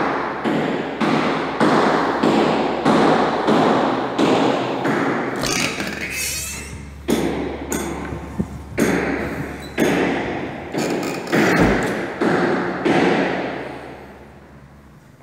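Footsteps on a hard tiled floor in empty, bare rooms, about two steps a second, each with a short echo, with a brief scraping about halfway through; the steps fade out near the end.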